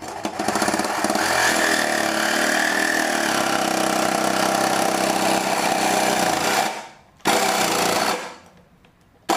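Reciprocating saw (Sawzall) cutting through a steel exhaust pipe, running steadily for about six and a half seconds, stopping, then a short second burst of cutting to finish the cut.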